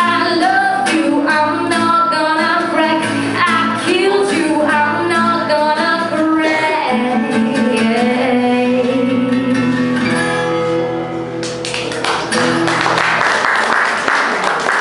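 A woman singing into a microphone to an acoustic guitar, the song closing on a long held note. About three-quarters of the way through the song ends and an audience applauds.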